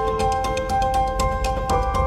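Instrumental music: held chord tones over steady light ticking percussion and a low bass.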